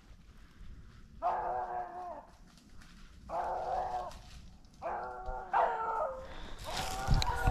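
Beagles baying in drawn-out howls, four or five bays coming closer together toward the end: the hounds giving voice as they open on a rabbit's scent and a chase begins. A rush of rustling noise comes in near the end.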